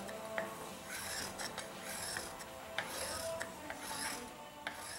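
Hand file rasping along the edge of an aluminium flat-stock base plate screwed to a mahogany block, in repeated strokes about one a second, fitting the plate flush to the wooden body.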